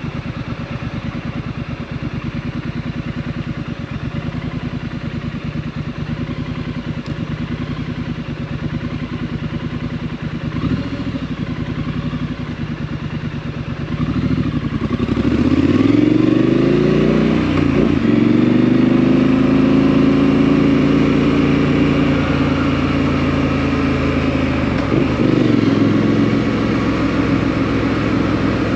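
Exhaust of a Triumph Street Scrambler 900's parallel-twin engine through a Vance & Hines exhaust, running steadily at low revs. About halfway through it gets louder and revs rise as the bike pulls away, with a gear change about three seconds later. It then runs steadily with a hammering beat, with another brief dip near the end.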